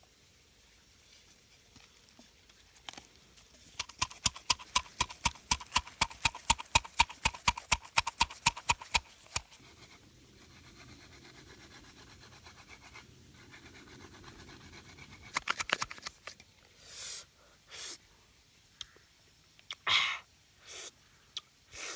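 A rapid run of sharp knocks or taps, about five a second, starting about four seconds in and stopping about five seconds later; a few scattered louder knocks and rustles follow near the end.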